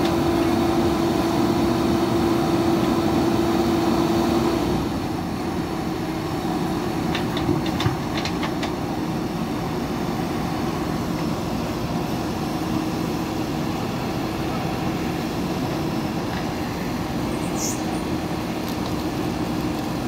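Diesel engines of several JCB backhoe loaders running as they dig, a steady drone with a held tone that drops a little about five seconds in. A few knocks come around eight seconds in.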